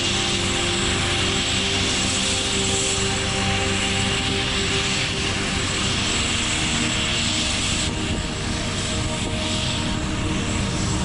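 AgustaWestland AW139 twin-turbine helicopter running on the ground with its rotor turning: a steady turbine whine over a constant rotor hum, holding the same pitch throughout.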